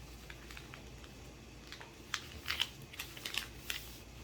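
A sheet of paper being folded and creased by hand into an airplane wing: irregular crisp crackles and taps, busiest in the second half.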